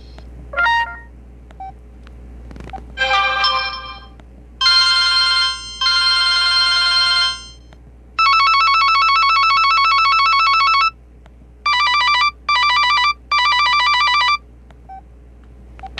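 Casio G'zOne flip phone playing a string of short electronic alert tones one after another: a brief blip, a short chime, two longer chords, a long trilling tone of nearly three seconds, then three short trills.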